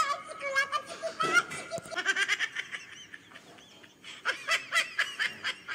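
High-pitched laughter in quick repeated bursts, quieter for a moment in the middle, then picking up again near the end.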